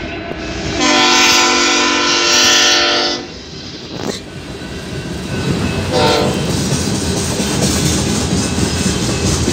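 BNSF diesel freight locomotive's air horn sounding one long blast, then a short toot about three seconds later. A train of tank cars rolls past with a steady rumble and wheels clacking over the rail joints.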